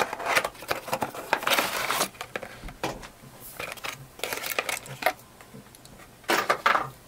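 Handling and unboxing of a cardboard window box with a white plastic insert: rustling, scraping and crinkling of the packaging in several bursts, the longest at the start, as the diecast toy truck is slid out.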